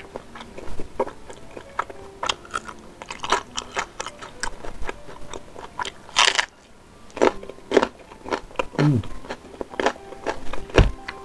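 Close-miked eating: wet chewing with many crisp clicks, and crunchy bites into raw green bird's-eye chilies, the loudest crunch about six seconds in. A short low thump comes near the end.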